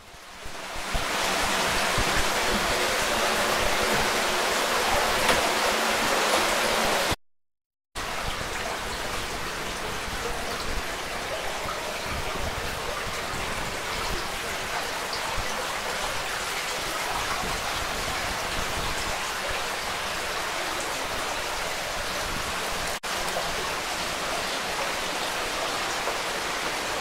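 Steady rushing of water from a cave stream. It is louder in the first few seconds, drops out completely for a moment about seven seconds in, then carries on a little quieter.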